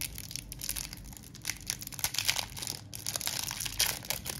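Crinkling and rustling of a trading-card pack's wrapper as the cards are handled, in dense, irregular crackles.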